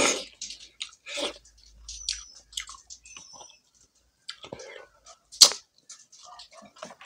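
Close-up, wet chewing and lip smacking of a mouthful of rice and chicken eaten by hand, in short irregular strokes. A brief lull comes a little before four seconds in, and one sharp smack, the loudest sound, comes just after five seconds in.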